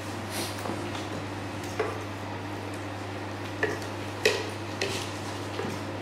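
Wooden spoon stirring a shallot and butter sauce in a stainless steel saucepan, knocking against the pan a few times, the sharpest a little past four seconds in, while butter is worked into the sauce. A steady low hum runs underneath.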